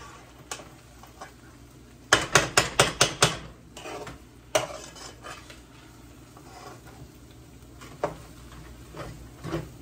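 A metal spoon scraping and knocking against the inside of a metal cooking pot as rice is turned over so it won't burn: a quick run of about eight clinks a couple of seconds in, then scattered single knocks.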